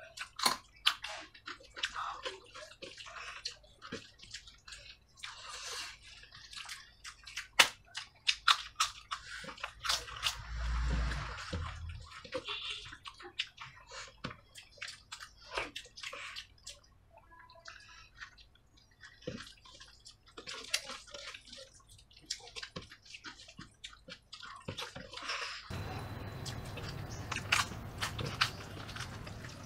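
Close-miked wet eating sounds: fingers squelching rice mixed with kadhi, and mouths chewing and smacking, heard as a dense, irregular string of small wet clicks.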